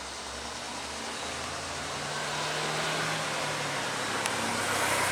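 Bus engine running amid road traffic noise, its low hum swelling a little over the first few seconds and then fading.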